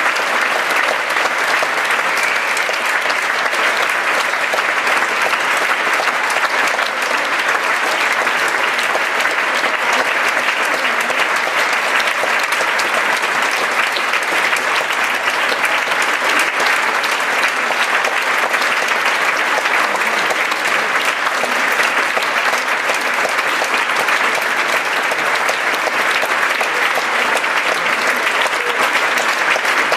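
Theatre audience applauding at a curtain call: a dense, even clapping that holds steady without letting up.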